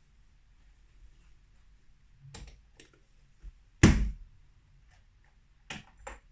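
Espresso gear being handled on a counter: a few light clicks and taps, with one loud knock a little under four seconds in.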